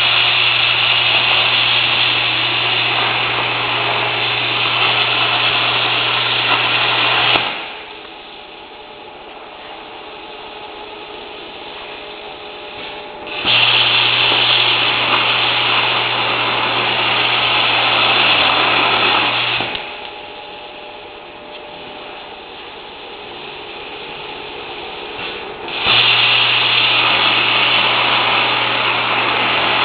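Hobart plasma cutter with an ICE-40 hand torch cutting circular holes through metal plate: three long, loud cuts of a steady hissing arc with a low hum, each stopping suddenly, with a quieter steady hiss in the gaps between holes.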